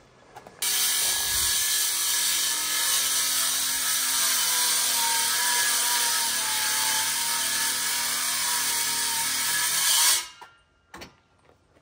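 Power saw cutting through a wooden board, running steadily for about nine seconds before cutting off sharply, followed by a single click.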